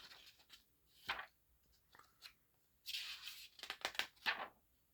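Faint rustling and crackling of paper as the pages of an old printed catalog are handled and turned, with a longer sliding hiss and a run of quick crackles in the second half.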